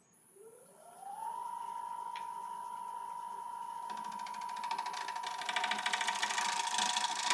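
Wood lathe motor starting up, its whine rising in pitch over about a second and then holding steady. From about four seconds in, a gouge cuts into the spinning applewood bowl blank with a fast, even chatter that grows louder.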